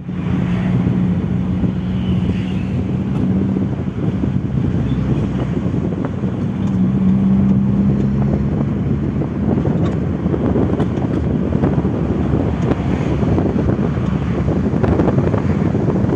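Car driving along a road, heard from inside the cabin: steady road and wind noise with a low engine hum that fades in and out.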